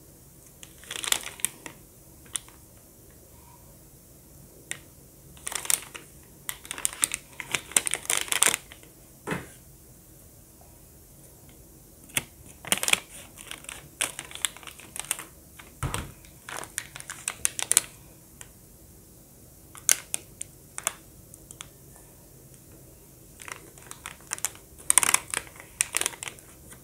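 Plastic candy packets crinkling and rustling in the hands in irregular bursts, with scissors snipping through one packet partway through and a dull knock around the middle.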